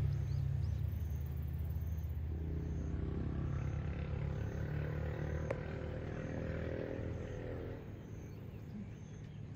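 A motor vehicle engine running with a steady low hum that slowly fades away. A few faint high chirps come near the start.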